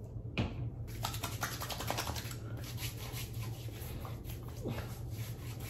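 Hands rubbing aftershave splash mixed with balm into a freshly shaved face and neck: a run of quick, irregular scratchy rubbing strokes of skin on skin.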